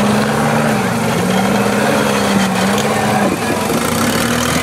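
Rock crawler buggy's engine running at low revs under load as it creeps over a boulder, its pitch dipping briefly about a second in and otherwise holding steady.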